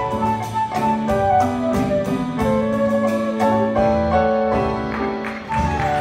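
Rumba music: sustained melody notes over a steady beat of about four ticks a second.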